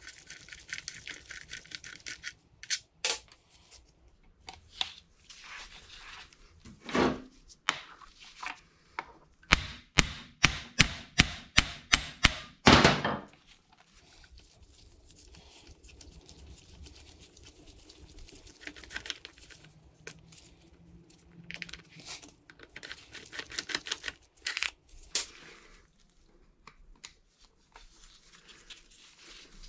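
Hand tools and small parts clicking and clattering at a Yamaha PW80's engine side cover during disassembly. A fast run of about a dozen loud, sharp clicks comes about ten seconds in, with scattered lighter clicks later on.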